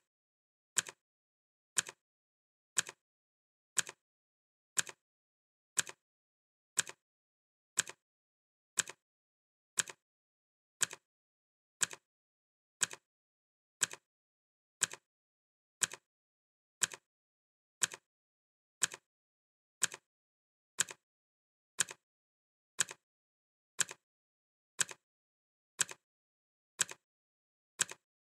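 Clock ticking steadily, one sharp tick about every second with silence between.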